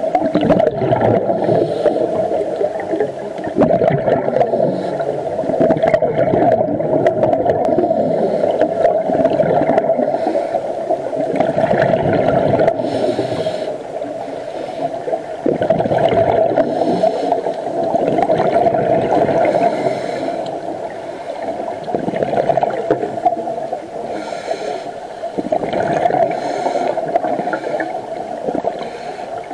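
Muffled underwater ambience picked up by a submerged camera: a steady, dull rush with gurgling, swelling and easing over several seconds at a time.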